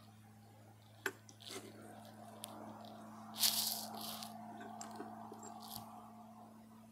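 Key jingling and clicking in a riding mower's ignition switch, a few sharp clicks and short rattles, with no engine cranking or starting: the mower's safety lockout is holding it off because a steering lever is out of place. A faint steady hum sits underneath.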